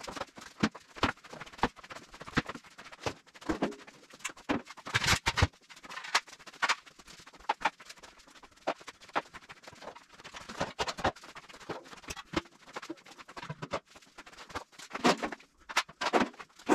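Quick, irregular knocks and clatter of new car parts (tyres, a subframe and body panels) being handled and set down on a garage floor.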